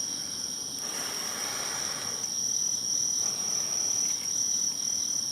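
Insects, crickets by their sound, trilling in a continuous high-pitched chorus. Behind it a soft hiss swells and fades a few times.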